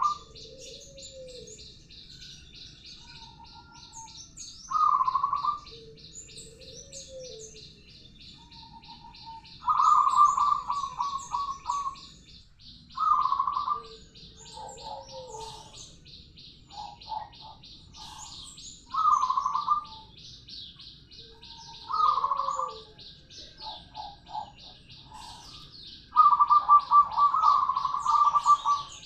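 Zebra dove (perkutut) cooing in about six separate phrases, each a loud rolling, trilled coo, with the longest roll starting near the end. Behind it runs a steady, fast, high-pitched chirping of small birds.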